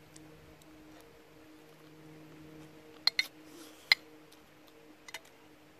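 A metal spoon clicking against a plastic food container: a quick pair of sharp clicks about three seconds in and a single one just before four seconds, over a faint steady hum.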